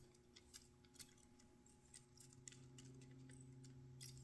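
Near silence: a few faint, scattered small clicks over a low steady hum.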